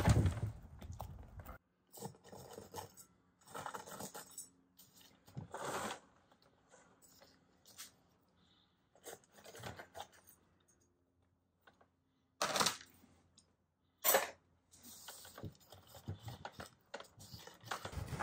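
Gritty bonsai potting soil crunching and scraping in short, scattered bursts as it is poked and pressed down into the pot, with quiet gaps between. The two loudest scrapes come about two thirds of the way through.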